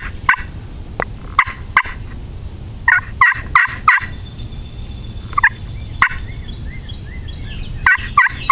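Wild turkey tom gobbling in a series of loud, short rattling bursts, the longest and loudest about three to four seconds in.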